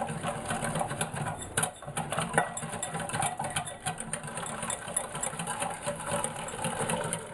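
Wire whisk beating egg yolk mixture in a glass bowl, a fast, even clicking and scraping of the wires against the glass, with one sharper click about a second and a half in. The whisking tempers the yolks as hot milk is added little by little.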